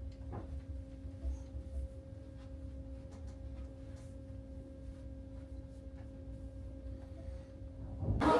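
Steady low hum over a low rumble, with a few faint clicks. A louder sound cuts in suddenly near the end.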